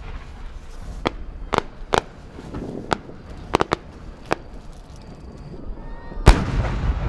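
A No. 10 (about 30 cm) aerial firework shell in flight: short sharp pops and cracks from the small effects fitted to its rising tail, then, about six seconds in, the shell's main burst as a much louder bang. The bang is followed by a long low rumbling echo.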